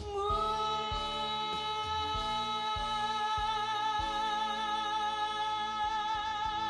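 Male singer holding one long final note with a slight vibrato over the band's accompaniment, which changes notes several times under it.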